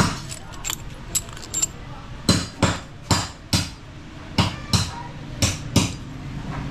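Sharp metal-on-metal knocks of a hand tool striking engine parts: a few lighter taps, then four pairs of harder strikes, each pair about a third of a second apart.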